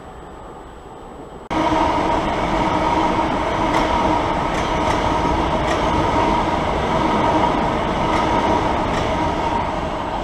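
A Southern electric multiple-unit train running past along the platform, cutting in loud and sudden about a second and a half in. It is a steady rush of wheels and running gear with a steady hum and a few light clicks of wheels over rail joints.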